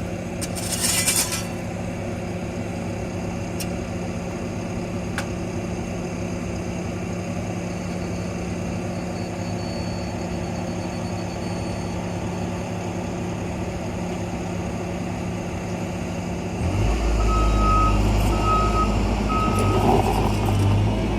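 Diesel engine of heavy construction equipment running steadily, with a short hiss about a second in. Near the end the engine gets much louder and a reversing alarm beeps three times.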